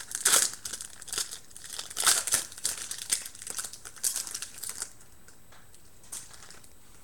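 Football trading-card pack wrapper being torn open and crinkled by hand, a run of sharp crackles that dies down about five seconds in.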